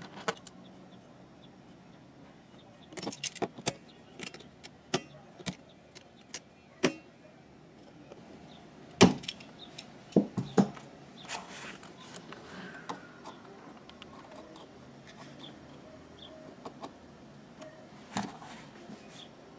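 Metal hand tools being handled at a workbench: a scatter of short, sharp clicks and taps, the loudest a few about halfway through, with a few more near the end.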